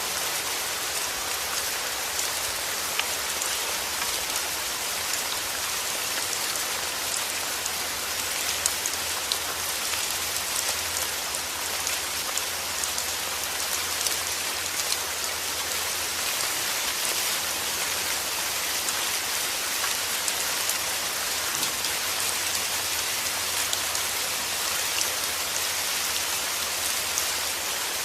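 Heavy rain falling steadily: a dense, even hiss with many fine drop ticks.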